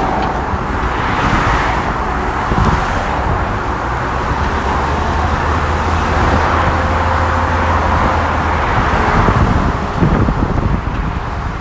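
Continuous engine and traffic-like noise. A low, steady engine hum runs through the middle, under a rushing noise that swells and fades several times.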